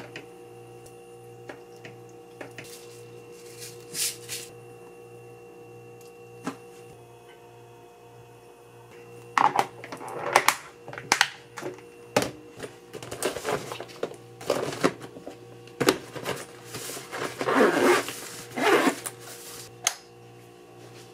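Plastic lunch-box containers and their clip-lock lids knocking, clicking and scraping on a stone counter as the boxes are closed and stacked, in a quick run of sharp clatter through the second half. A steady low hum lies underneath, with only a few light clicks in the first half.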